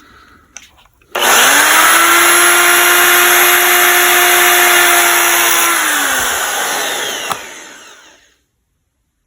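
Rotary tool (Dremel-type) with a metal cut-off wheel grinding into a stripped steel screw head, cutting a slot for a flathead screwdriver. The motor starts suddenly about a second in and runs as a steady high whine over a loud grinding hiss, then is switched off near the six-second mark and spins down with falling pitch, fading out about two seconds later.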